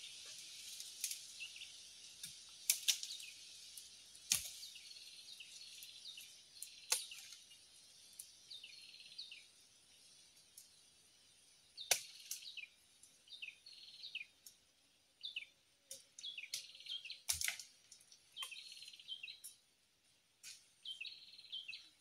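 Small bird chirping: short high notes repeated many times, coming faster in the second half. Several sharp clicks or snaps stand out as the loudest sounds, and a steady high insect-like hiss fades out over the first few seconds.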